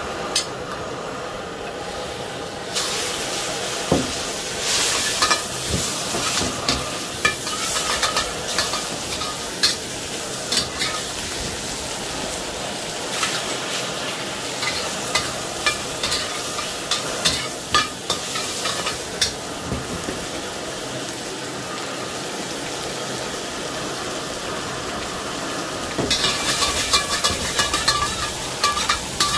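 Pork frying in a smoking-hot wok over a gas jet wok burner. A strong sizzle starts about three seconds in as the meat goes into the oil, with the clack and scrape of a utensil stirring against the wok, busier near the end. The burner's steady rush runs underneath.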